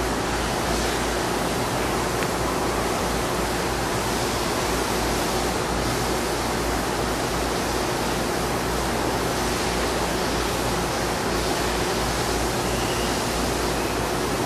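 Steady, even hiss with a faint low hum: the running noise of a Klingelnberg P26 gear measuring machine and its room.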